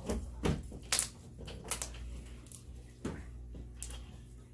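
Slime being handled and squished, giving about six short sticky clicks and pops spread irregularly over a few seconds.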